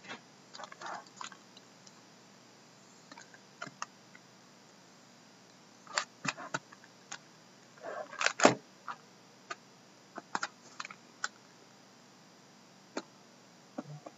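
Shrink-wrapped cardboard boxes of trading cards being handled and shifted on a wooden table: scattered light taps and clicks. A louder cluster of knocks comes about eight seconds in.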